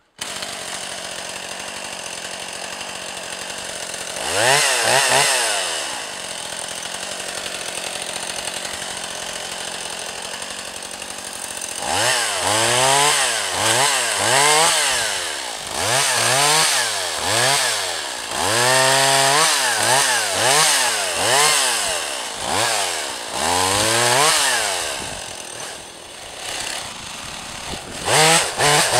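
Stihl MS 180 C chainsaw's small two-stroke engine idling, revved once about four seconds in. From about twelve seconds in it is revved about eight times, pitch rising and falling with each throttle burst as it saws through a log. It drops back to idle, then revs up again near the end.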